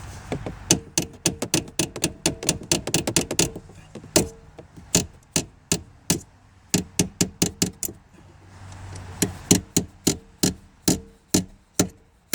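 Rapid metal-on-metal tapping on a small pin punch, driving the hinge pin out of a quarter-window latch. The sharp strikes come in irregular runs of a few a second, with short pauses between runs, and each strike has a light metallic ring.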